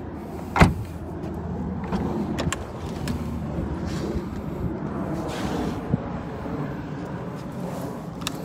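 A car door shuts with a single sharp thump about half a second in, over a steady low rumble, with a few light clicks later on.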